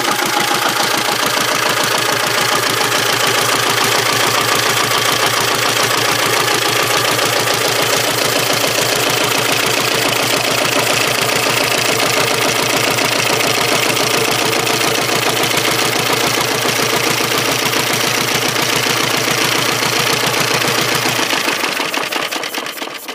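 Cutaway Ford Model A four-cylinder flathead engine running steadily with an even, rapid firing beat, then switched off about 21 seconds in and dying away.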